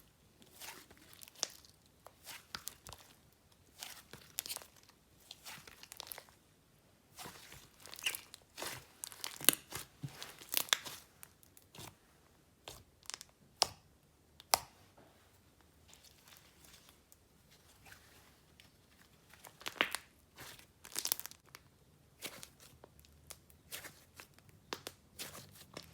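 A swirled mix of basic, clay and icing slime being squished and stretched by hand, giving irregular sharp bubble pops and crackles with short quiet gaps between.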